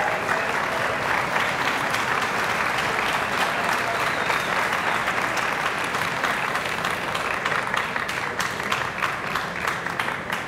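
Audience applauding, a dense steady clapping that thins into scattered individual claps near the end.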